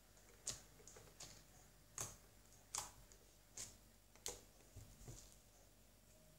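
Blue slime mixed with polystyrene beads being squeezed and kneaded by hand: faint, sharp clicks, about seven of them, at a roughly even pace of a little over one a second.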